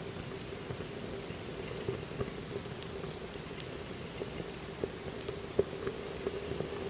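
Paper and cloth burning in a metal saucepan, with scattered small crackles and one sharper pop about five and a half seconds in, over a steady low hum.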